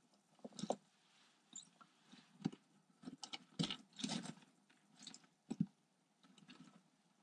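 Bark chip substrate crackling and rustling in short, irregular bursts as a toad and a garter snake shift and struggle on it.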